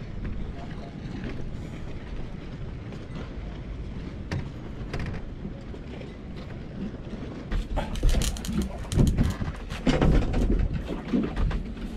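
Wind buffeting the microphone over water for the first half, then a run of loud knocks and clattering bangs from a little past halfway.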